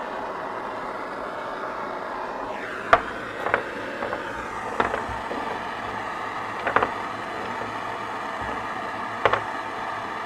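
Bernzomatic propane torch on a 1-pound propane cylinder burning with a steady hiss as it scorches small wooden pieces. Several short wooden knocks come from about three seconds in, as the pieces are shifted on the workbench.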